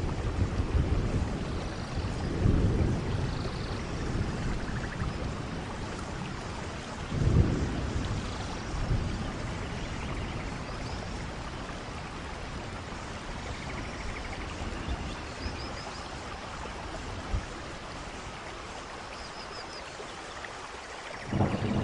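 Steady rain falling, with low thunder rumbles swelling up and dying away about three seconds in, again around seven seconds, and near the end. A few faint high chirps come through the rain in the second half.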